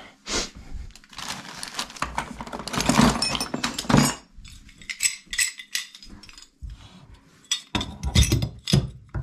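Hard metal clinks, knocks and scrapes of tools and parts against a mixer tap and sink, in a dense run about three to four seconds in, sparser after, and louder again near the end.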